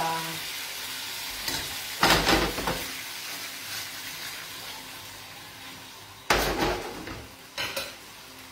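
Pappardelle sizzling in a frying pan of white ragù over a gas flame, a steady hiss. The pan is tossed and stirred in loud short bursts about two seconds in and twice near the end.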